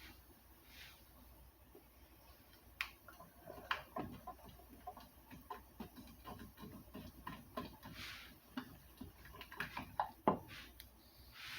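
Dishes and kitchen utensils being handled: scattered light clicks, taps and knocks, busiest in the middle with a sharper knock near the end, and a few short soft hisses.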